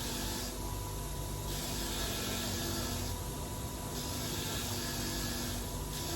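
Chainsaw gear teeth being cleaned: a scratchy hiss in long strokes of about a second and a half each, repeating with short pauses between them.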